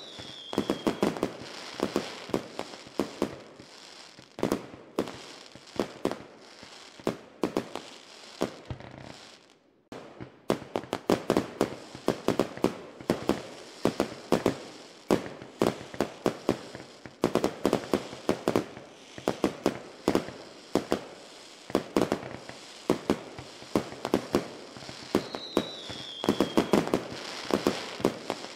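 Fireworks going off: a rapid, continuous run of bangs and pops with a brief lull about ten seconds in. A short falling whistle sounds at the start and again near the end.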